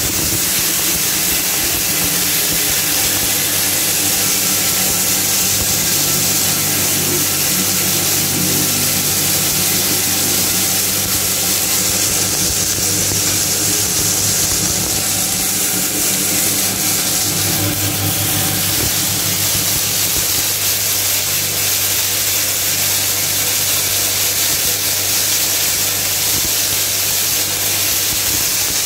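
Maize crushing machine running steadily on its motor: a constant low hum under a loud, even hiss.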